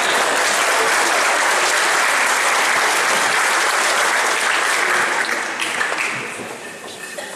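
Audience applauding in a hall, the clapping dying away near the end.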